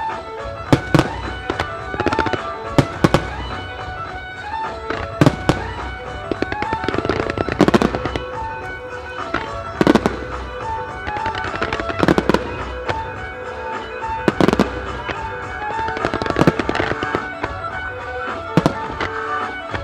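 Aerial firework shells bursting in irregular sharp bangs, about one every second or two, some in quick pairs. Music with sustained notes plays along under the bursts.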